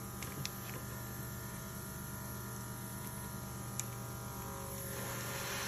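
Small airbrush compressor humming steadily, with a couple of faint clicks; near the end the airbrush opens and a steady hiss of spraying air comes in.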